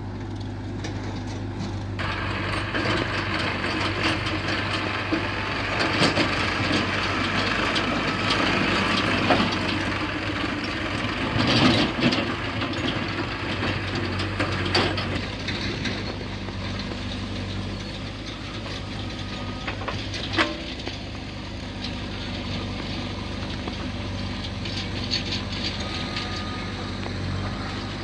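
Diesel engines of a JCB 3DX backhoe loader and farm tractors running steadily with a low drone, with a few sharp knocks now and then. Through roughly the first half a tractor pulling a loaded trolley on a dirt track is louder and rattling.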